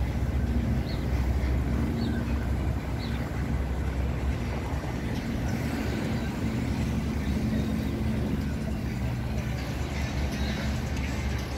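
Steady low rumble of a vehicle running, with a faint hum and three short high chirps about a second apart near the start.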